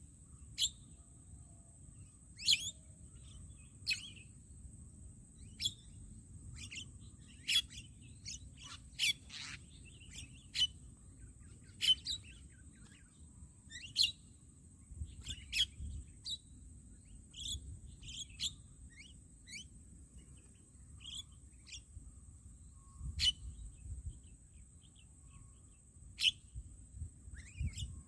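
Short, sharp bird calls repeating every second or two, over a steady high-pitched tone.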